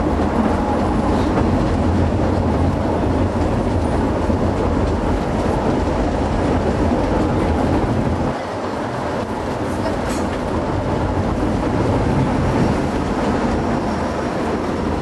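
A tram car rolling along rails while a Unimog truck tows it, heard from inside the car: a steady low rumble that dips briefly about eight seconds in.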